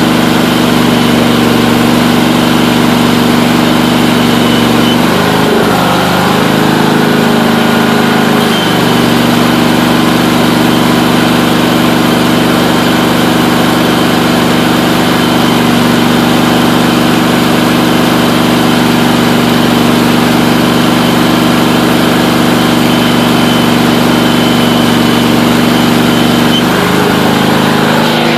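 Allis-Chalmers B110 garden tractor engine running steadily while it drives a car-alternator welder, over the steady crackle of a stick-welding arc. The engine's pitch dips briefly about five seconds in and again near the end.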